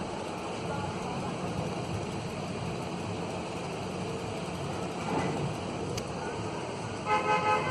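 Steady rushing noise with a vehicle horn near the end, sounding in three or four quick short toots.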